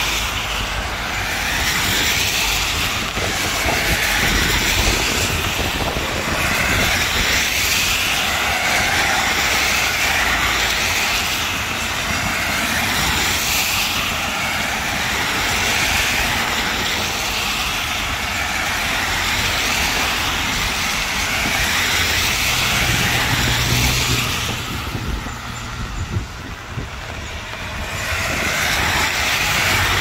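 Steady heavy rain falling, a dense hiss of drops that swells and eases every couple of seconds over a low rumble, easing briefly a few seconds before the end.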